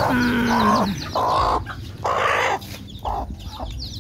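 Mother hen clucking in a run of short clucks, opening with a longer call that falls in pitch, while her chicks peep with many small high cheeps that fall in pitch.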